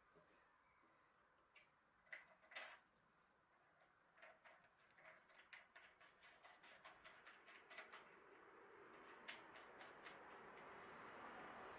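Faint metallic clicks of step-clamp hardware being handled: a couple of light knocks about two seconds in as parts are set down, then a quick run of small ticks, about four or five a second, as the clamp nut is run down its threaded stud by hand.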